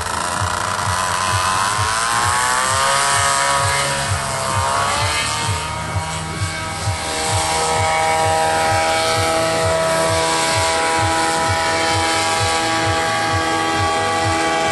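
Paramotor engine and propeller running hard at full power for takeoff, its pitch wavering up and down over the first six seconds, then holding steady as it climbs away.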